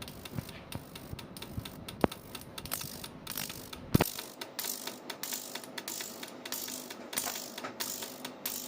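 Fuel injectors from an Alfa Romeo 2.0 JTS clicking rapidly as a cleaning and test bench pulses them, in a dense, uneven ticking. Two sharper, louder clicks come about 2 and 4 seconds in.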